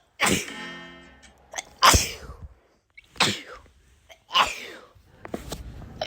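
Four human sneezes, one after another, each a sharp burst that fades within about half a second, spaced a second or so apart.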